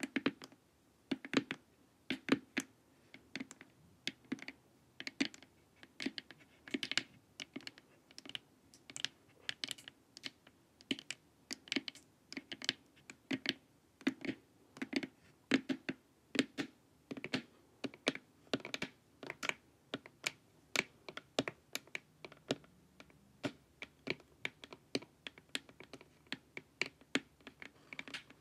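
Long acrylic fingernails tapping on a hard, glossy plastic face mask: quick, irregular clicking taps, a few a second, each with a hollow plastic knock under the sharp nail click.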